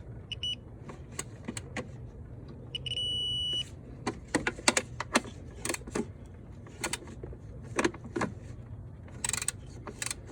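Socket and wrench clicking and knocking against metal as the intake-manifold bracket bolts are torqued down. A high electronic beep sounds briefly about half a second in and again, held for about a second, near a third of the way through.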